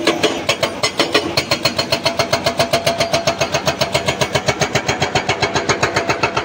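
Hydraulic rock breaker on a Tata Hitachi excavator hammering boulders: a rapid, steady pounding of about nine blows a second, with the excavator's engine running underneath.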